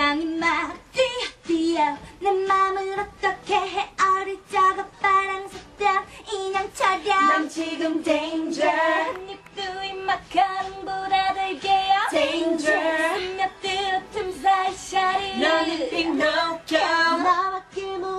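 Women's voices singing a K-pop song live into microphones, with backing music.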